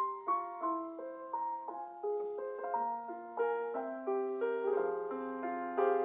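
Soft solo piano music: single notes and chords struck one after another and left to sustain.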